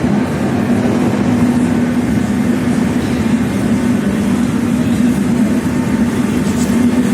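An 81-717.5M 'Nomernoy' metro train running, heard from inside the car: a loud, steady rumble with a constant hum.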